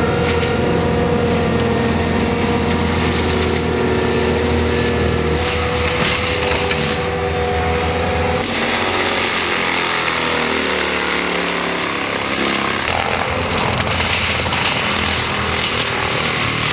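ASV 135 tracked forestry mulcher running its mulching head at full speed, the toothed drum shredding brush and small trees. A little past the middle the pitch sags and then climbs back as the drum digs in under load.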